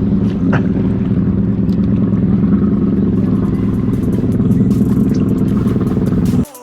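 Motorboat engine running steadily at speed, cutting off abruptly near the end.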